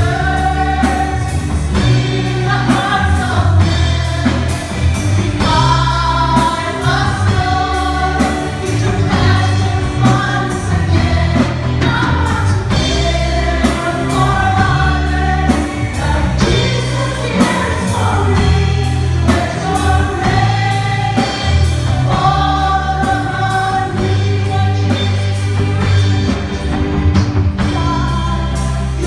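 Live gospel praise-and-worship music: a worship team singing into microphones over a band with a steady drum beat and a bass line, coming through the church's PA speakers.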